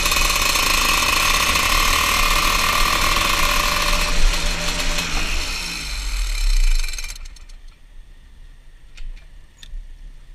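TM KZ10B 125 cc two-stroke shifter kart engine running at low revs off the track, its pitch dropping about five seconds in and the engine cutting off about seven seconds in. A few faint clicks follow.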